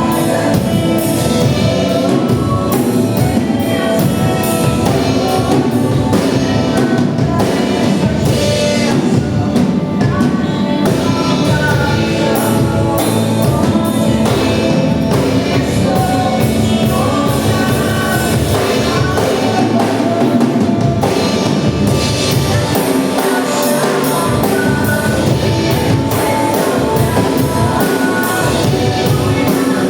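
A worship band playing with drum kit and singing, loud and continuous.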